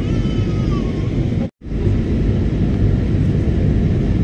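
Steady rumble of an airliner's engines and airflow heard inside the cabin during the descent to land. The sound cuts out for a split second about a second and a half in.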